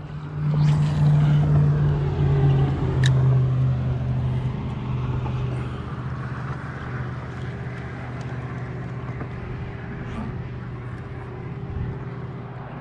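A motor vehicle's engine passing: a steady low hum that is loudest in the first few seconds, drops slightly in pitch, then slowly fades away.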